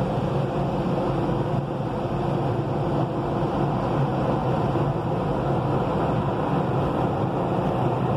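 Automatic car wash machinery working over the car, heard from inside the closed cabin: a steady, even rush with a constant hum under it.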